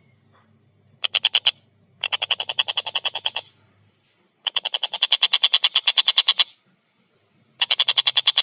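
Tengkek buto kingfisher giving rapid, loud cackling call series, about ten harsh notes a second, in four bursts broken by short pauses; the last burst starts near the end and carries on.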